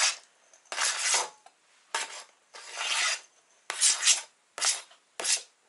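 Knife blade scraping across a plastic cutting board in six or seven short strokes, pushing chopped herring off the board into a bowl.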